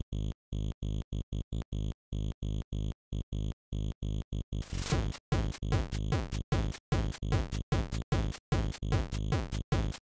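ZX Spectrum 128 chiptune from the AY sound chip: short, clipped square-wave notes with silent gaps between them. About four and a half seconds in, the full tune starts, with noise-channel drum hits and fast arpeggios.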